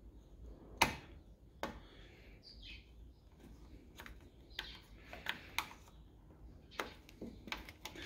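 Faint, scattered clicks and ticks of a metal hook pick working a round plug cover out of a truck door's edge, with the sharpest click about a second in.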